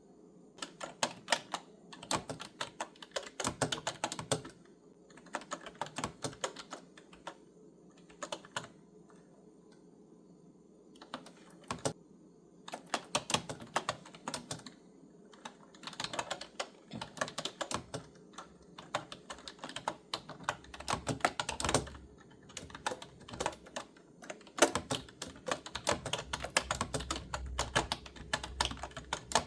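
Clicky computer keyboard being typed on in bursts of rapid keystrokes, broken by short pauses of a second or two. A faint steady hum sits underneath.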